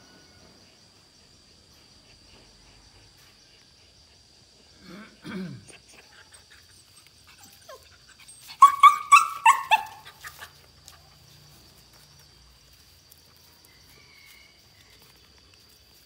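A sick German Shepherd puppy gives a low, falling groan, then about three seconds later a quick run of about six loud, high yelping cries, each one dropping in pitch: the cries of a dog in pain or distress.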